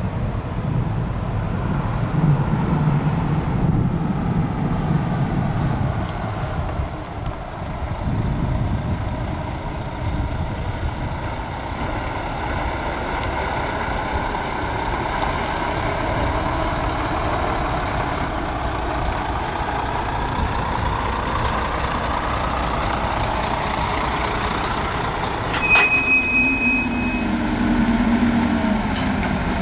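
Heavy truck diesel engines running as a Volvo FH12 tractor-trailer drives past and manoeuvres, the engine note slowly rising and falling. Near the end there is one sharp click, then a lower steady engine hum.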